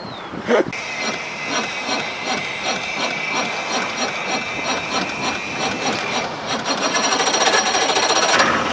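Outboard motor's electric starter cranking the engine for about eight seconds without it firing: a click, then a starter whine over a steady rhythmic chugging. It cranks for longer than it usually needs to.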